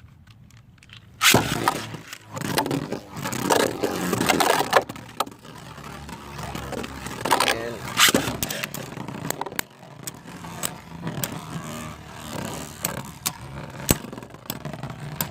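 A Beyblade launch about a second in, then two Beyblades, one of them 3D-printed, spinning and clashing in a plastic stadium: a continuous rattle broken by many sharp clicks of contact.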